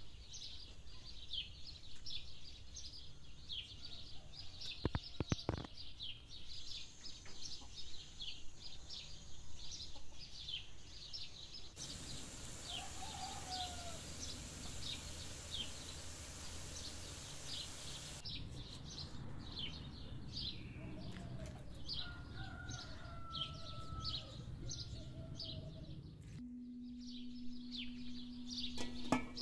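Small birds chirping over and over, a few chirps each second, with occasional lower calls from poultry. Near the middle a steady hiss covers the birds for about six seconds.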